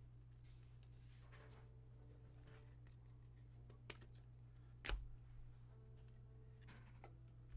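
Near silence over a steady low hum, with faint sounds of trading cards being handled and one sharp tap about five seconds in.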